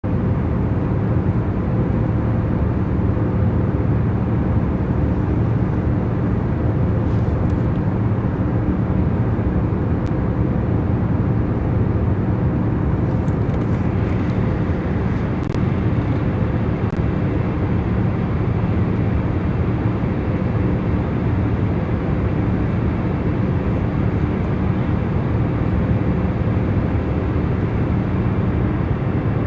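Steady airplane cabin noise in flight: an even rush of engine and airflow noise with a constant low hum of several steady tones. A few faint clicks a little past the middle.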